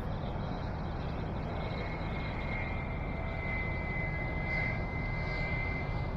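Steady low drone of a distant engine, with a thin high whine coming in about two seconds in and holding.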